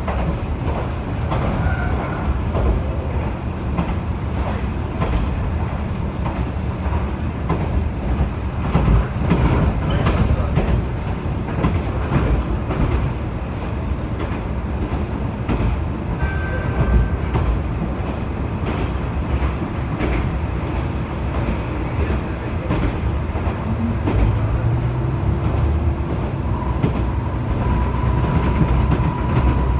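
Kanto Railway KiHa 2400 series diesel railcar running along the line, heard from inside the car: a steady rumble of engine and wheels with clicks as the wheels pass rail joints. A steady thin whine comes in near the end.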